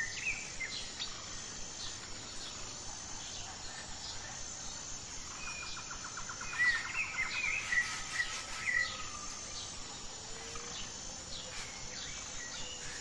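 Faint outdoor ambience: a steady high insect drone, with birds chirping a few times around the middle, including a quick run of rapid ticks.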